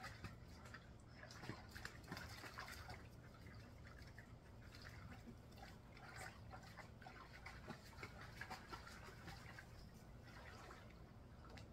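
Faint water sounds from a plastic kiddie pool: small splashes, drips and lapping as dogs wade in and drink from it.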